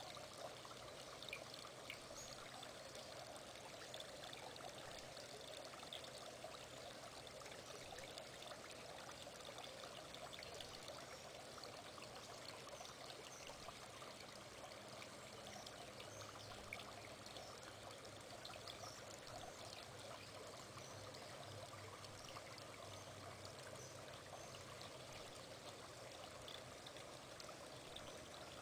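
Faint, steady trickle of water circulating in a fish tank, with small bubbly ticks throughout and a low hum beneath.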